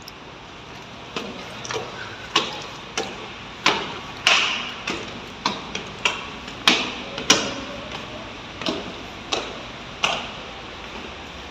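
Footsteps going down hard stone stairs in a tiled stairwell: sharp, echoing steps at a steady walking pace, nearly two a second, starting about a second in and stopping about ten seconds in.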